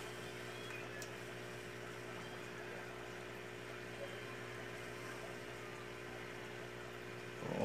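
A steady low electrical hum with an even background hiss, unchanging throughout, with a faint tick or two.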